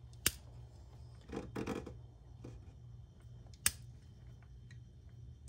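Click-type torque wrench tightening a spark plug: faint ratchet ticks as it swings, a brief rattle of handling about a second in, and two sharp clicks about three seconds apart, the wrench breaking over at its set torque of 13 ft-lb.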